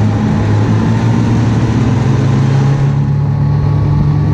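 Ski-Doo Skandic SWT snowmobile's Rotax 900 ACE three-cylinder four-stroke engine running steadily under way, heard from on the machine, its pitch rising a little about halfway through.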